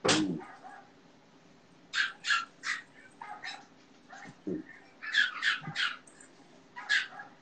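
A small dog yapping in short sharp barks, one at the start and then in quick runs of two or three, with a brief whine about halfway through.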